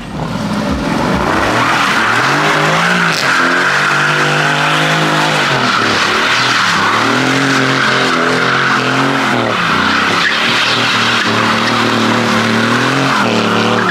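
Aston Martin Vantage doing a smoky burnout donut: the engine is held at high revs while the rear tyres squeal without a break. The revs climb a couple of seconds in, dip briefly in the middle, then hold high and fall away near the end.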